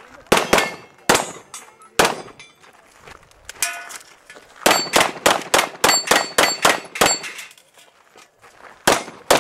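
Handgun shots fired at steel plate targets, the plates clanging on hits: four shots in the first two seconds, a rapid string of about ten from about five to seven seconds in, and two more near the end.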